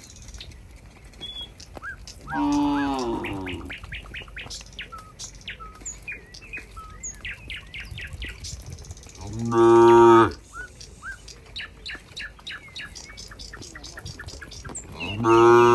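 Cows mooing three times, each moo about a second long, the first falling in pitch, with small birds chirping throughout.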